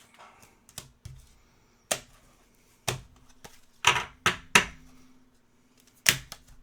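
A string of sharp, irregular taps and knocks, about seven, with a quick cluster of three about four seconds in: small hard objects set down and handled on a tabletop. A faint steady hum runs underneath.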